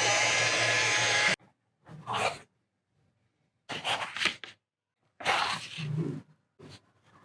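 A small electric motor running with a steady hum that cuts off suddenly about a second and a half in, followed by several short rustling or scraping bursts with quiet gaps between them.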